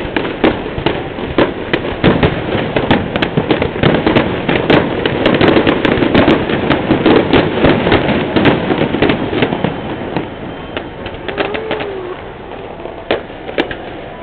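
Fireworks going off in rapid, dense volleys of bangs and crackles. They thin out and get quieter over the last few seconds.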